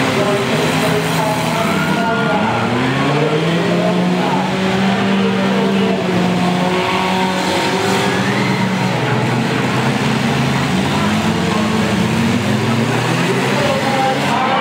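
Several demolition derby cars' engines running hard and revving together, their pitches rising and falling as the cars accelerate and back off.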